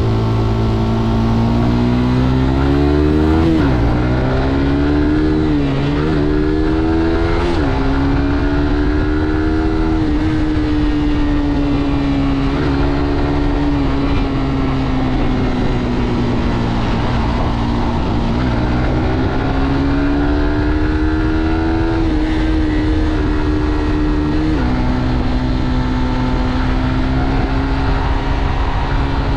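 Stock Suzuki GSX-R125's single-cylinder four-stroke engine heard from onboard while riding. The engine pulls up through several quick upshifts in the first few seconds, each one a sudden drop in pitch. It then holds a steady speed, eases off, and climbs again before another shift near the end.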